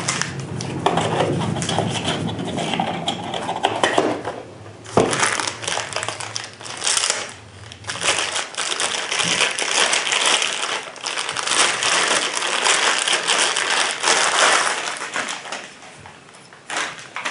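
Packaging handled during an unboxing: plastic wrap crinkling and rustling, with scattered light clicks and knocks.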